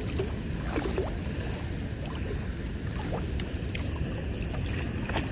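Steady rush of spillway water flowing hard, a constant low roar with wind on the microphone. A few faint short chirps sound over it about a second in and again near three seconds.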